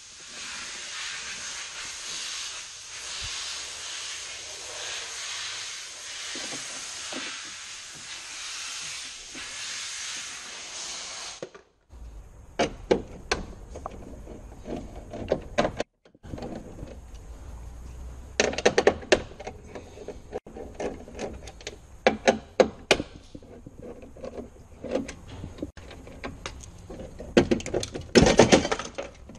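A steady hiss for the first eleven seconds or so. Then irregular clicks, snaps and rattles as plastic wiring-harness clips and connectors are unplugged and pried off the inner metal shell of a Hyundai i20 front door, with a burst of quick clicks near the end.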